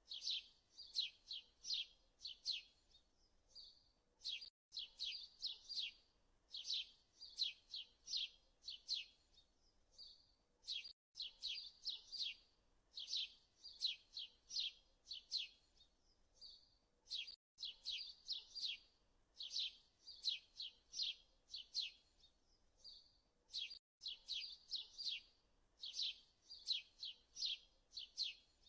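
Small songbird chirping in quick, high runs of notes, the same phrase pattern repeating about every six and a half seconds, as in a looped birdsong background track.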